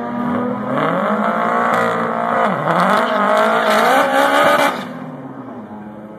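Car engine revved hard and held at high revs with its pitch wavering while the tyres spin in a drag-strip burnout. The revs drop off sharply near the end, leaving a quieter, low engine idle.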